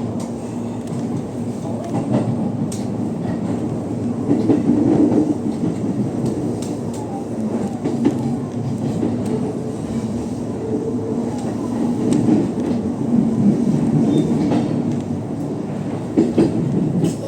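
Interior running noise of a JR E233-1000 series electric commuter train: a steady rumble of wheels on rail, with scattered clicks as the wheels pass over rail joints.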